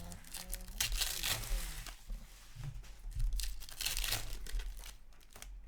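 Foil trading-card pack wrappers being torn open and crinkled, in irregular bursts of tearing and rustling, the biggest about a second in and again around three to four seconds in.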